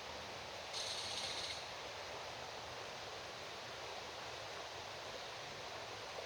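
Steady rush of a flowing river. About a second in, a brief, higher hiss rises over it for under a second.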